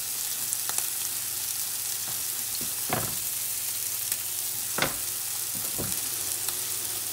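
Raw ground-beef patties sizzling steadily in hot olive oil in a skillet on high heat, with a few short clicks.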